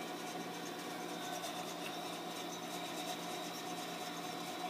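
A steady background hum with a faint hiss and no distinct events.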